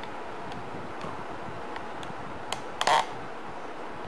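Steady background hiss of a room recording, with a few light clicks and one short, louder clatter about three seconds in.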